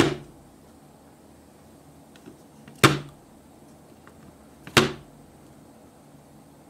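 Three sharp knocks, one at the start, one near three seconds in and one near five seconds in, as small plastic slime barrels are tipped over and strike a tray. Each knock dies away quickly.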